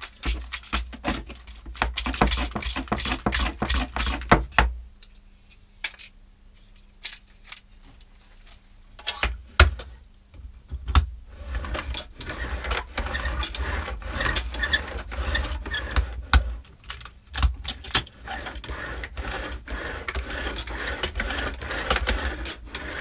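Plastic paint edger being worked by hand: its roller is rolled back and forth in a plastic paint tray, then a few knocks, and from about halfway in the edger is run up and down a board. Its roller and small guide wheels give a continuous rattling, clicking rolling sound.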